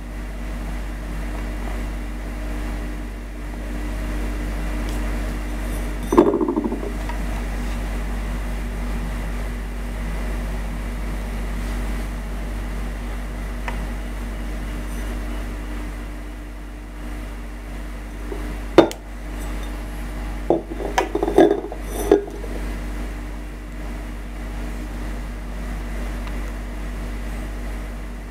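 Heavy glazed ceramic dish knocking and clinking against a wooden table as it is handled and turned over: a brief knock about six seconds in, then a cluster of sharp clinks a little past the middle. A steady hum runs underneath.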